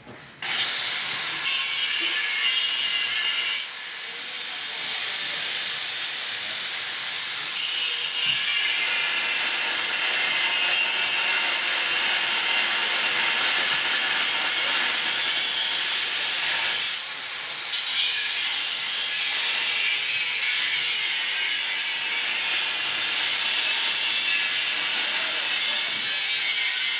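A tool cutting through welded metal: a loud, steady hissing grind, with brief dips about 4 and 17 seconds in.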